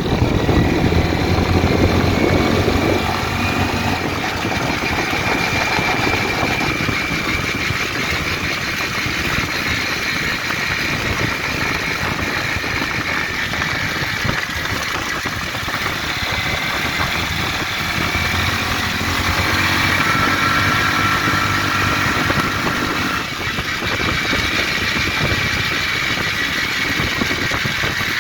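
Engine of a GSMoon 260-1 buggy running steadily, with a slight change in its note a few seconds in and again about two-thirds of the way through; somewhere in it is an odd noise the owner cannot place.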